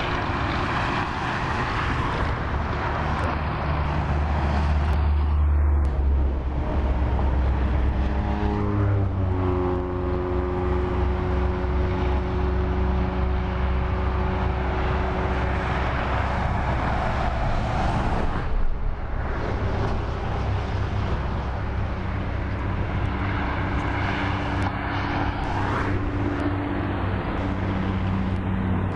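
Highway traffic: cars and a truck passing below with a continuous rumble of tyres and engines. About nine seconds in, an engine's pitch drops as a vehicle goes by, followed by a steady engine hum.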